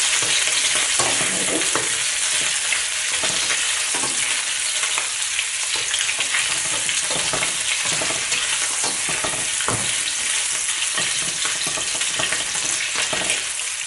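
Shrimp sizzling in hot oil in a wok, with a spatula scraping and clicking against the pan as they are stirred.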